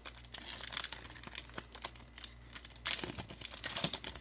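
Wrapper of a Topps Gypsy Queen baseball card pack being torn open and crinkled in the hands: a run of quick crackles, loudest about three seconds in.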